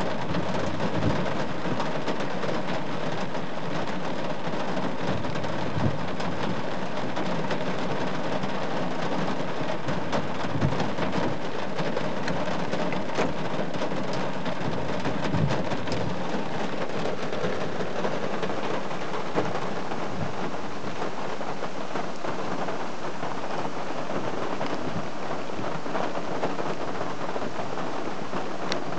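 Heavy rain falling steadily in a continuous hiss, with a few short low thuds.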